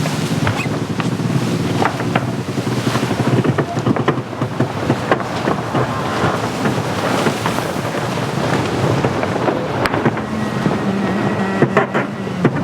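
Wind buffeting the microphone and water rushing and splashing along the hull of a VO65 racing yacht under sail, crossed by many short sharp slaps and knocks. A low steady hum joins about ten seconds in.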